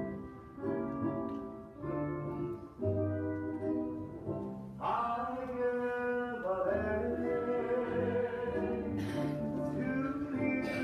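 Hawaiian hula song: sustained instrumental notes at first, with a singing voice coming in about five seconds in.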